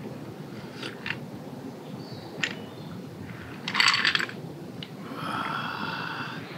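Ice cubes clinking in a drinking glass as it is sipped from and set down: a few light clinks, then a brief louder rattle about four seconds in.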